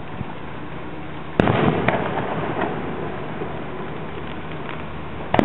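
Aerial fireworks shells bursting: a loud bang about a second and a half in, followed by a few smaller pops, and a second loud bang near the end.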